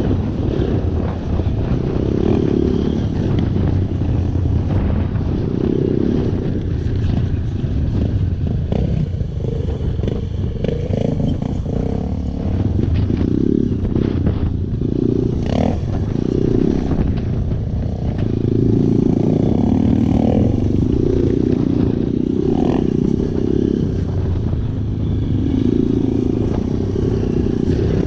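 Enduro dirt-bike engines running and revving, the engine note swelling and falling repeatedly as the bikes accelerate and ease off around the track.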